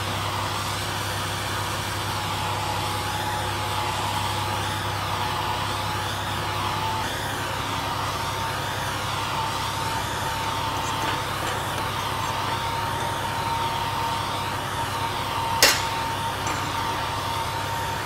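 Steady droning workshop machinery noise, a fan or motor, with a thin steady whine whose pitch steps up slightly about seven seconds in, and one sharp click near the end.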